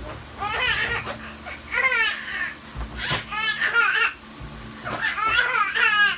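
Seven-month-old baby laughing in high-pitched bouts, about four bursts of giggly laughter with short breaths between.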